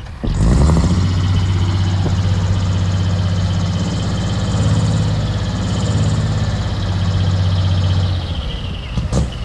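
Engine of a heavy earthmoving machine running steadily at a constant speed close by. It comes in abruptly just after the start and drops away a little past eight seconds.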